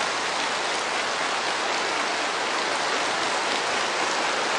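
Large crowd applauding steadily.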